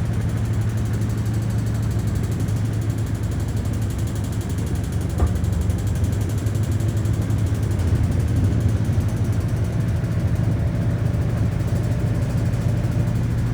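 Hoover 800RL top-loading washing machine running in its spin, a steady low motor hum, with a small click about five seconds in.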